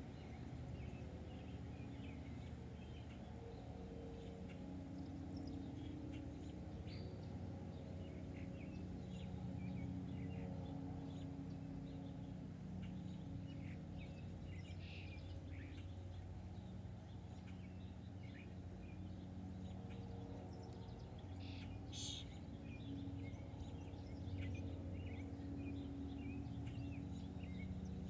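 Backyard songbirds chirping: many short, scattered chirps and calls, with one sharper call about two-thirds of the way through, over a steady low background hum.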